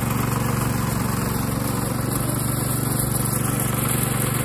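Small general-purpose petrol engine on a home-built RC lawn mower running steadily, driving the alternator that powers the mower's drive motors.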